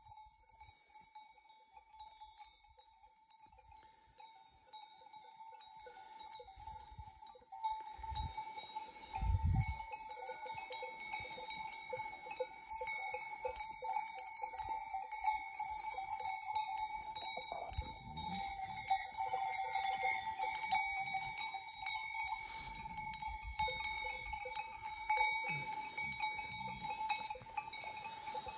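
Bells worn by a grazing flock of sheep ringing continuously, many bells clinking at once; louder from about seven and a half seconds in, with a couple of low thumps around nine seconds.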